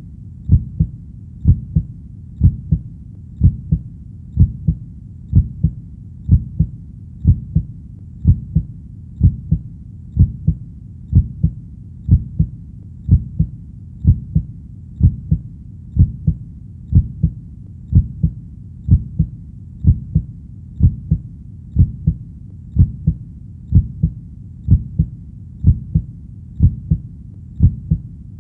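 Steady heartbeat: low, paired lub-dub thumps repeating evenly at about one beat a second.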